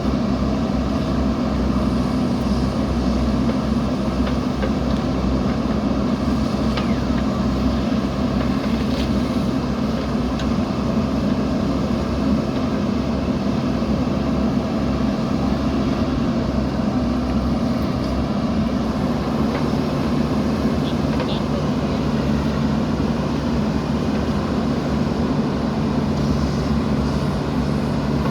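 Diesel engine of a JCB 3DX backhoe loader running steadily, with a few faint clinks scattered through.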